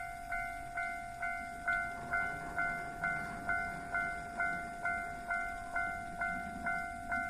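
Railway level-crossing warning bell ringing steadily, about two dings a second. A low rumble builds under it from about two seconds in and grows toward the end, a train drawing near the crossing.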